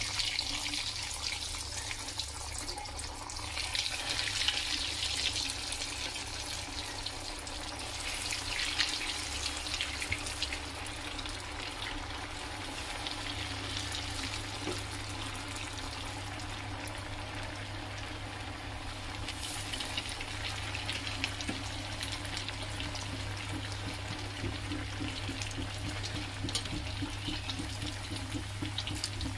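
Potato cutlets deep-frying in hot oil, a steady sizzling and crackling fizz of bubbling oil, swelling louder a few times in the first ten seconds as more cutlets go in.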